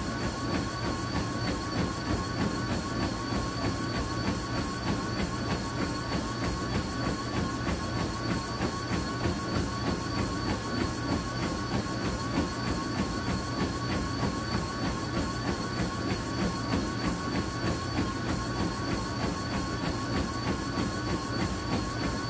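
Treadmill running at about 7-minute-mile pace: a steady motor and belt whine, with the runner's footfalls striking the deck in an even rhythm of about three steps a second.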